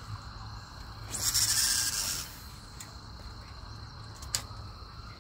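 Fishing line paying out from a reel during a cast: a high, whirring buzz about a second long, starting about a second in, followed by a sharp click near the end.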